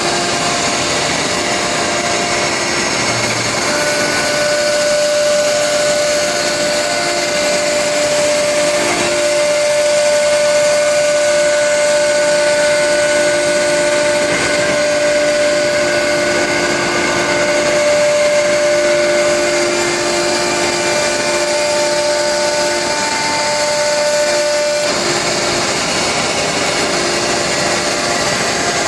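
CNC router running with a steady, loud machine noise and a whine. A clear tone comes in about four seconds in and stops about twenty-five seconds in.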